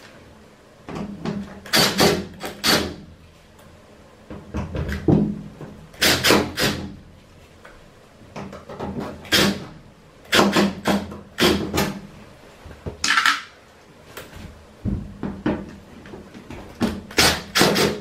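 Cordless Makita impact driver backing screws out of a washing machine's sheet-metal back panel, hammering in about six short bursts with pauses between.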